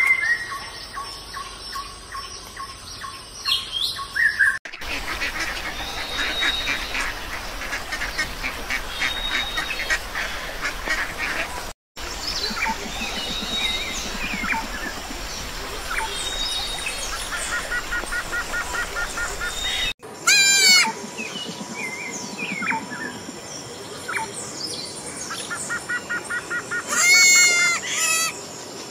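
Animal calls in several separate cuts: many short chirping bird calls over outdoor ambience through the middle, then loud, repeated honking calls in the last third.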